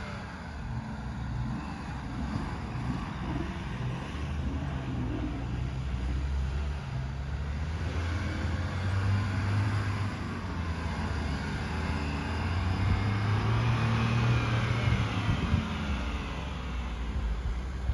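Engines of two SUVs, a Mahindra Bolero and a Mahindra Scorpio, running as they drive slowly over sandy ground. It is a low, steady engine drone that grows louder in the second half as the Bolero comes close.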